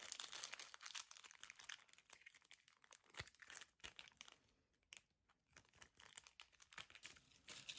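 Small clear plastic zip-lock bag and holographic nail foil crinkling faintly as the foil is worked back into the bag, a run of irregular crackles.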